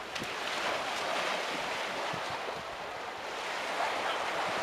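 Ocean surf washing onto the beach, a steady rushing hiss that swells and eases slightly.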